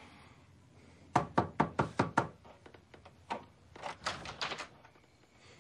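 Hard knocking: a rapid run of about six sharp knocks, then more knocking in two shorter runs.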